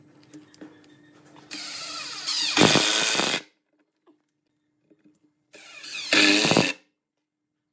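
Cordless drill driving screws into pine, in two bursts of a few seconds and about a second, each getting louder partway through.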